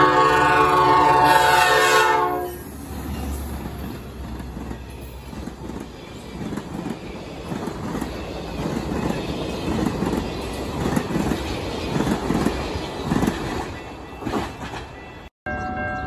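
Diesel commuter locomotive's air horn blowing one loud chord that stops after about two and a half seconds, then the train rolling past with a steady rumble and repeated clatter of wheels over the rail joints. The sound cuts off suddenly near the end.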